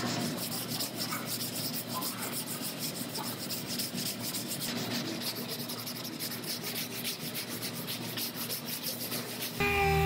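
Hand block-sanding of cured body filler on a car's quarter panel: quick, even back-and-forth rasping strokes of sandpaper. Just before the end it cuts suddenly to the steady whine of an air-powered dual-action sander.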